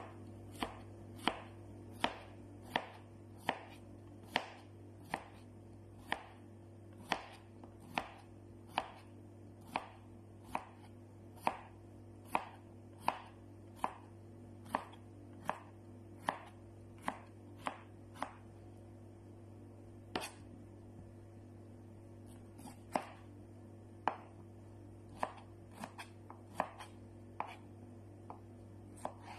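Kitchen knife slicing bitter melon (ampalaya) on a cutting board: the blade knocks on the board at a steady pace a little faster than once a second, with a break of a few seconds a little past the middle before slicing resumes. A low steady hum runs underneath.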